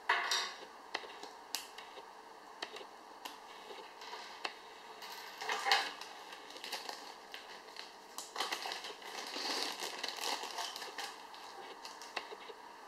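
A small clear plastic bag crinkling as it is handled, in several crackly bursts, with scattered light clicks in between.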